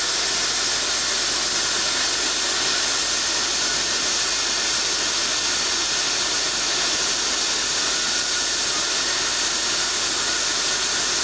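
Glassworker's gas torch burning with a steady, even hiss.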